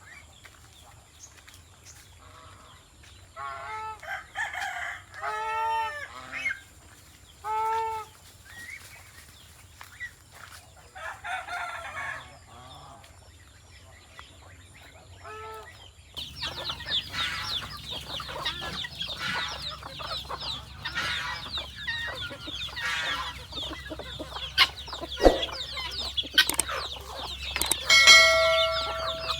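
Chickens clucking and calling: a few separate calls at first, then about halfway through a busier stretch of many overlapping clucks, ending with one long held call.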